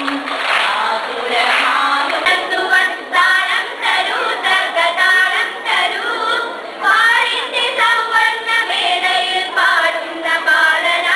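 A group of children singing a song together in unison, choir-style.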